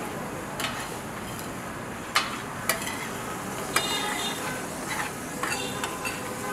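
Metal spatula scraping and clinking against a large shallow steel pan as minced meat fries in it with a steady sizzle. Several sharp metal clicks stand out, a few of them ringing briefly.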